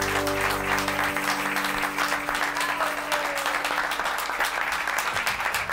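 Live audience applauding and clapping at the end of a song, while the band's final chord rings on and dies away about a second in.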